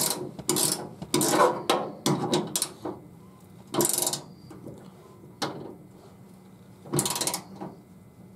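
Hand ratchet wrench clicking in short bursts as a bolt is run in and tightened, with scraping and handling of the hardware between strokes.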